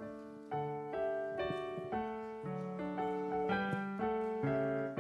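Digital piano playing the hymn's instrumental introduction, chords changing about twice a second, with no singing yet.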